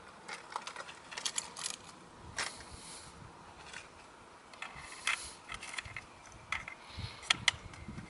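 Small plastic clicks and ratcheting from a 1/34-scale First Gear diecast rear-loader garbage truck model as its rear hopper mechanism is worked by hand, along with tiny plastic trash cans being set down and tipped: a scattered series of sharp clicks, some in quick clusters.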